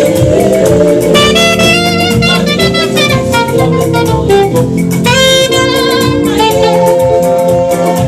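Saxophone playing a melody over a band in a gospel-jazz style instrumental.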